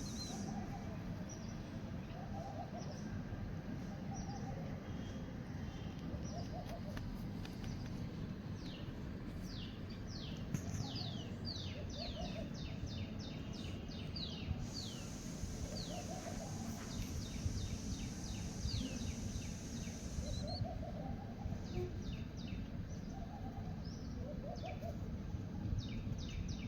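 Birds chirping: several runs of quick, short, high chirps, each falling in pitch, with soft lower calls repeating every second or two over a steady low rumble.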